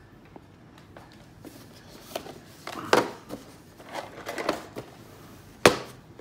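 Cardboard boxes being handled on a table: picked up, slid and stacked, giving a few soft knocks and rustles, with one sharp knock near the end.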